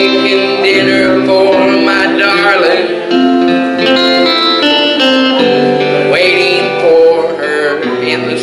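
Gospel song playing: a man singing into a microphone over a recorded backing track with guitar.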